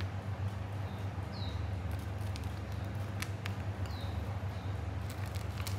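Steady low background hum, with a few short high chirps falling in pitch and scattered light ticks.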